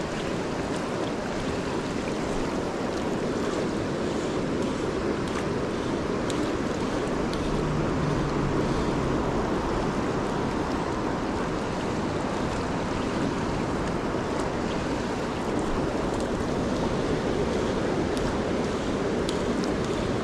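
Fast river current rushing steadily past, a loud even wash of water.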